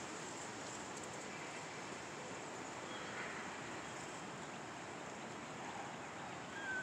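Steady outdoor background noise, an even hiss with no distinct sound events.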